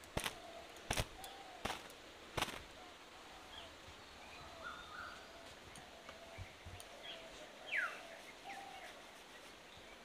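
A thin cotton towel snapping against wet hair in four sharp cracks about two-thirds of a second apart, then birds calling faintly in the background.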